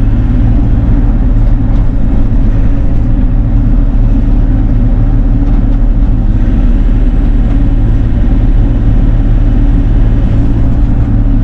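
Bobcat E42 mini excavator's diesel engine running steadily at a constant pitch.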